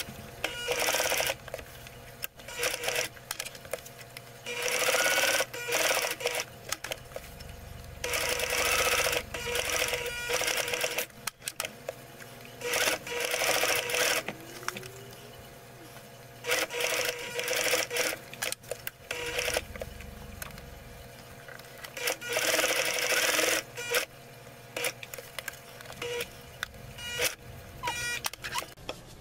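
Domestic electric sewing machine stitching in about six short runs of one to two seconds each. It stops between runs while the fabric is repositioned, with small clicks in the pauses.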